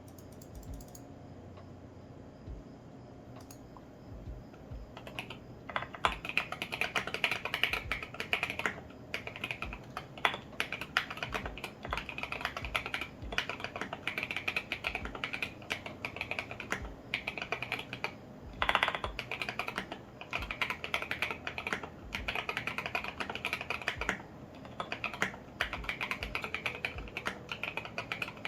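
Typing on a custom mechanical keyboard in an acrylic Tofu65 case, with lubed and filmed Alpaca V2 linear switches and SA-profile ABS keycaps. A quick, steady run of key clacks starts about five seconds in, with one louder clatter a little past the middle.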